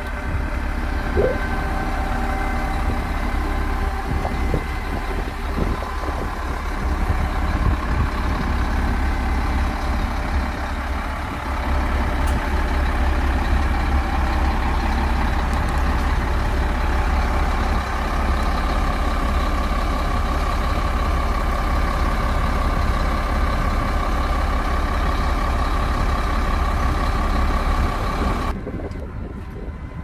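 Diesel engines of DISD SD300N wheel loaders running: a steady heavy low rumble with a higher whine over it. The sound drops suddenly to a quieter level about two seconds before the end.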